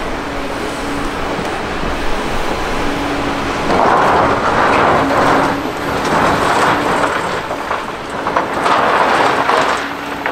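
Liebherr LH60 material handler running with a steady engine hum as its clamshell grab digs into crushed stone in a rail wagon. Three loud rushes of scraping, rattling stone come about four, six and nine seconds in as the grab bites and closes.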